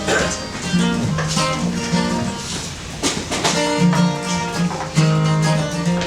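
Music with plucked and strummed guitar.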